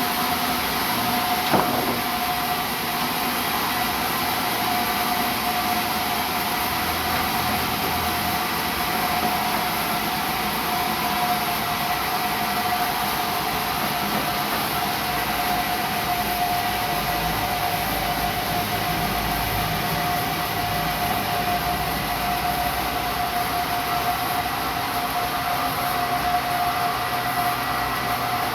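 Sawmill saw running steadily with a constant whine, with a single knock about a second and a half in.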